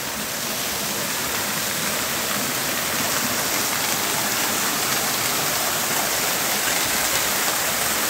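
Small forest waterfall falling in two strands onto rocks, a steady rushing splash of water that grows slightly louder toward the end.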